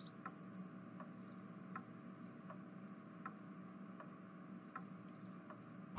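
Faint, even ticking, one soft tick about every three-quarters of a second, over a low steady hum of room tone.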